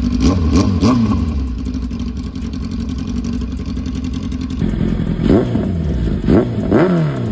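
2008–2010 Kawasaki Ninja ZX-10R's inline-four engine idling through an aftermarket Akrapovič exhaust, blipped in three quick revs at the start and three more near the end, each rising and falling back to idle.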